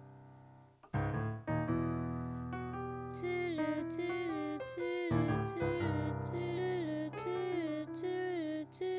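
Keyboard music, electric-piano-like. A held chord fades away, then about a second in a new passage starts, with held low notes under a melody that slides between pitches. From about three seconds in, a sharp tick sounds about twice a second.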